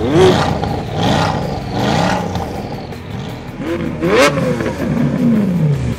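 Car engine revving sounds, the pitch rising and falling several times over, with a brief sharp burst of noise about four seconds in.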